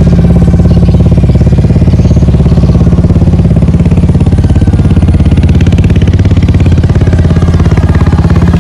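A motor running steadily and loudly with a fast, even pulsing beat.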